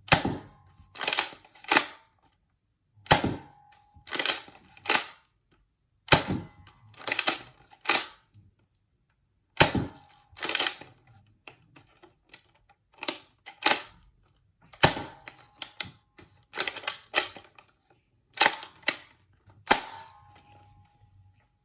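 Nerf Rival Kronos spring-powered blaster being fired repeatedly, every two to three seconds. Each sharp shot is followed by the short clacks of the priming slide being worked back and forth.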